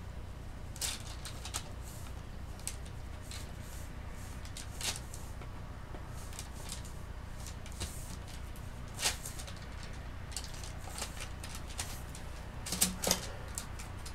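Sculpting tool scraping and scratching on clay in short, irregular strokes, with a few sharper clicks near the end, over a steady low hum.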